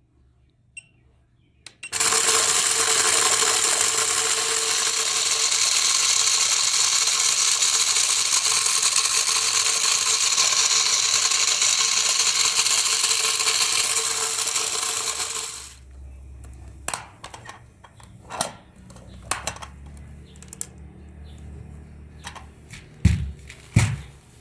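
Loud, harsh electrical buzzing from an electric toy run on high voltage. It starts abruptly about two seconds in and cuts off after about 13 seconds, followed by a low rumble, scattered clicks and two low thumps near the end.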